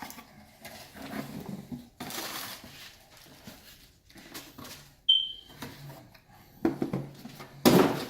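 Handling and unpacking a boxed toy set: packaging rustling and scattered small knocks and clatters, with a brief high squeak about five seconds in and a sharp knock near the end.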